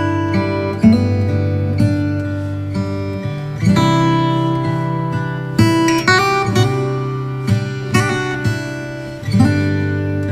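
Background music: strummed acoustic guitar chords, each strum ringing out before the next.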